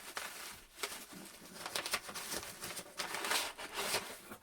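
Irregular rustling and crinkling of packaging being handled.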